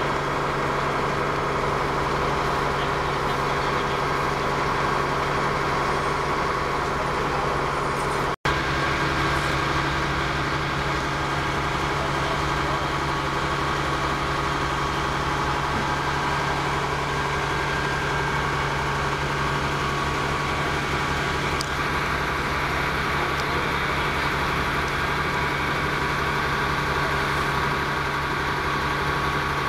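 A large engine running steadily, an even hum with a constant whine above it that does not change in pitch. The sound drops out for an instant about eight seconds in.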